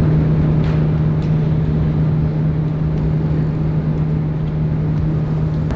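Steady low electrical hum of a refrigerated drinks vending machine, one unchanging low tone over a low rumbling background, cutting off sharply near the end.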